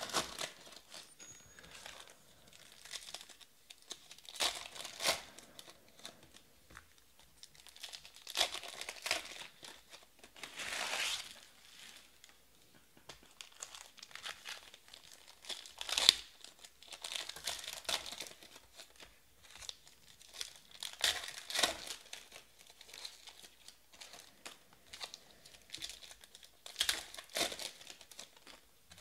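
Foil trading-card pack wrappers being torn open and crinkled by hand, in short intermittent bursts, with a longer crinkle about eleven seconds in.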